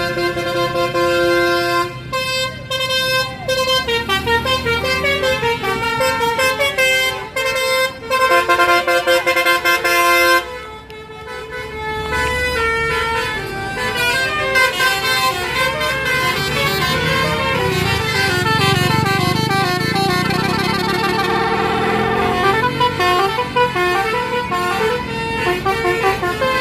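Bus's basuri (telolet) musical air horn playing a tune. It holds a multi-note chord, steps through notes, sounds a loud held chord that cuts off about ten seconds in, and after a short dip plays a long run of quick-changing notes over a low engine rumble.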